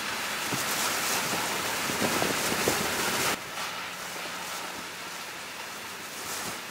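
Hurricane wind and rain as a steady rushing noise, with wind buffeting the microphone and a few faint knocks; about three seconds in it drops suddenly to a quieter rush.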